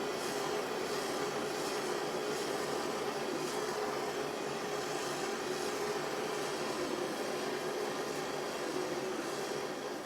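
Small gas blowlamp burning with a steady hiss, its flame heating a lead pipe joint to melt tin solder.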